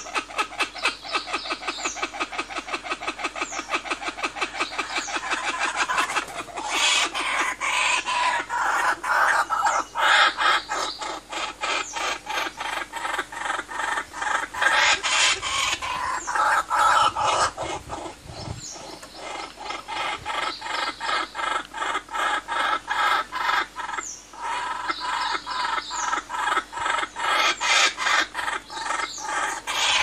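Kookaburras calling in a laughing chorus: a long run of rapid, rhythmic cackling notes, about three to four a second, that swells and fades in waves.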